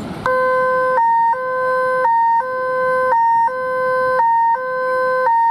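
Electronic two-tone siren sounding in a steady hi-lo cycle, about one cycle a second. Each cycle is a longer lower note followed by a short note nearly an octave higher. It starts abruptly just after the beginning and cuts off suddenly near the end.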